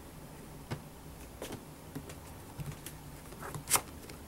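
Small clicks and scrapes of hands twisting the round bottom cover of a Mac Mini, with a sharper click just before the end.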